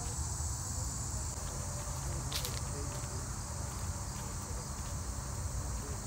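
A steady, high-pitched chorus of insects over a low rumble, with one brief sharp click about two and a half seconds in.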